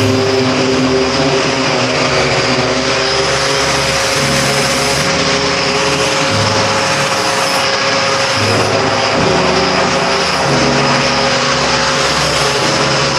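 A machine running steadily with a loud, even noise. A steady tone runs underneath, and lower tones step from one pitch to another every second or two.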